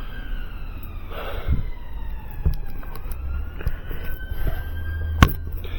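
Emergency vehicle siren wailing, its pitch sliding slowly down and then back up, over a steady low hum. A single sharp click about five seconds in.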